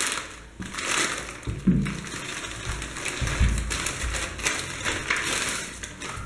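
Plastic courier mailer bag crinkling and rustling as it is torn open by hand and a box is pulled out of it, with a few soft low bumps of handling.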